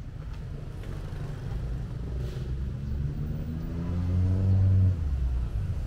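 A motor vehicle's engine accelerating close by: a low rumble whose pitch rises steadily and grows louder, then drops off sharply about five seconds in.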